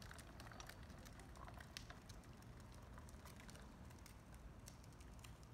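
Faint, irregular clicking and light rattling from a folding wagon being pulled over asphalt, its wheels and frame ticking as it rolls, over a low rumble.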